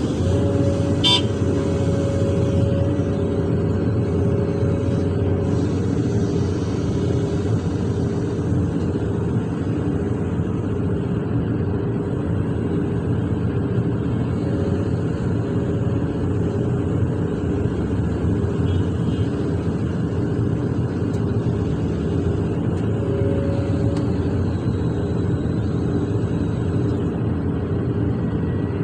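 Large hydraulic excavator's diesel engine running steadily under working load, heard from inside the operator's cab. A higher steady tone comes in briefly about a second in, again around the middle and near the end, with a short click about a second in.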